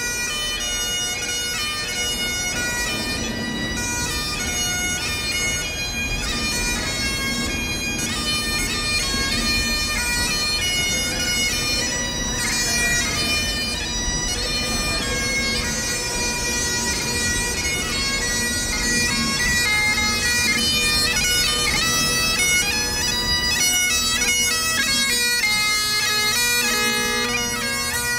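Bagpipes playing a tune over their steady drones.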